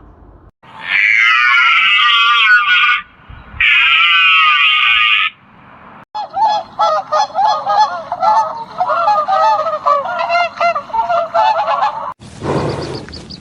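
Animal calls: two long, loud, harsh calls in the first five seconds, then a long run of short, quick calls, several a second, that stops about a second before the end.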